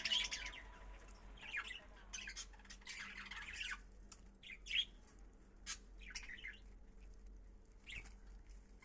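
Small pet parrots chirping and squawking in short, scattered calls, with brief gaps between them.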